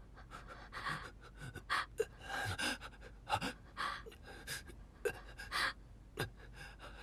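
Uneven, heavy breathing: short panting breaths and gasps coming irregularly, one or two a second.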